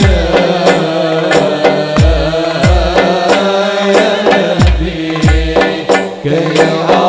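Sholawat devotional music: a melodic line over percussion, with deep drum strokes that drop in pitch, coming in pairs about two-thirds of a second apart.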